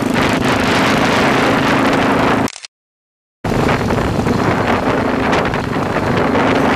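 Motorcycles riding at speed: steady engine sound under heavy wind noise on the microphone. The sound drops out for under a second about two and a half seconds in, then resumes.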